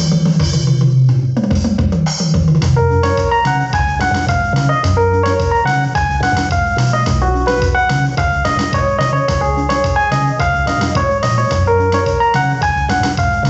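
Electronic keyboard playing a quick, busy sebene-style run of short single notes over the chord progression, with a steady drum-kit beat underneath.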